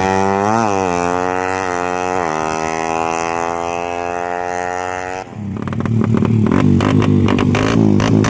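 Suzuki Satria FU motorcycle engine, with ported head and RMC aftermarket exhaust, revved in a few quick blips and then held at high revs, sagging slowly. About five seconds in the revs cut off sharply and it falls to a lower, pulsing run.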